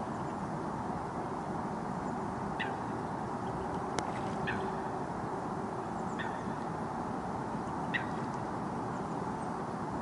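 Eurasian coot calling: four short, sharp calls, each falling in pitch, spaced about one and a half to two seconds apart. They sit over a steady low background rush, with a single sharp click about four seconds in.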